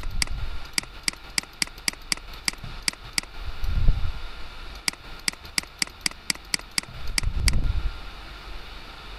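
Computer mouse button clicking in quick runs, about four clicks a second, as the clone stamp tool is dabbed again and again. Twice a low rumble, near the middle and near the end, is louder than the clicks.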